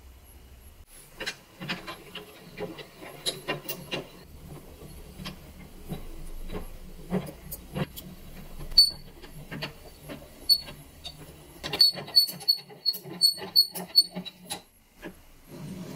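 Rusty metal parts of a 1920s hand-cranked potato peeler being worked, giving irregular clicks, ticks and small squeaks from about a second in. A run of sharper, higher ticks comes in the second half and stops shortly before the end.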